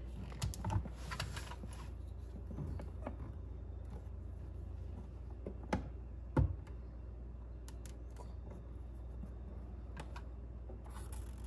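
Scattered light clicks and taps of hands handling an adapter plate against a boat's console and marking it with a marker pen, over a low steady hum.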